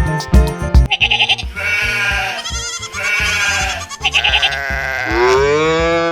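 Background music with a steady beat, mixed with quavering goat bleats through the middle. Near the end comes a longer animal call that rises in pitch.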